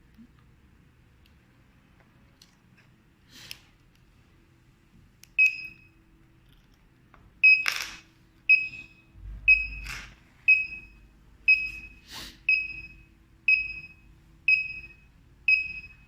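X10 alarm control panel beeping: short, high beeps about once a second, each fading quickly, as the system is armed in away mode. A few sharp clicks fall among the beeps.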